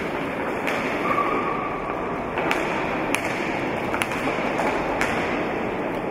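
Roller hockey play on a hall rink: a steady hum of crowd and rolling skates, broken by about five sharp clacks of sticks striking the hard ball.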